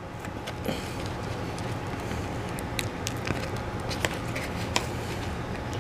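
A metal spoon scraping and clicking against a cardboard pie tray while scooping chocolate cream pie, with a handful of sharp clicks and faint crackling. A steady low hum underlies it.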